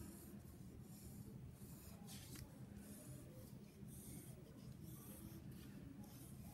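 Wooden pencil writing letters lightly on paper: faint, short scratching strokes, over a low steady hum.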